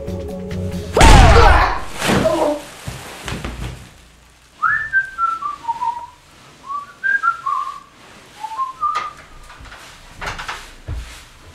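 A person whistling a short tune of repeated, downward-gliding notes. A loud crash-like burst comes about a second in, and a few knocks near the end.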